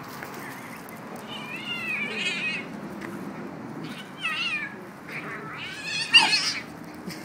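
Kitten crying out in three wavering meows, the last and loudest near the end, while two puppies wrestle and mouth it.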